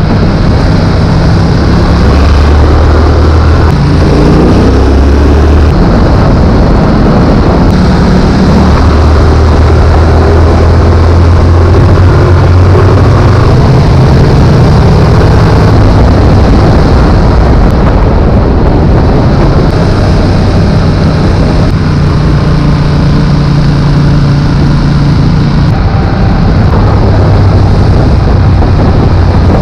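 Yamaha XSR700's 689 cc parallel-twin engine and exhaust running loud, its note shifting up and down in pitch, with a rising rev about three to five seconds in.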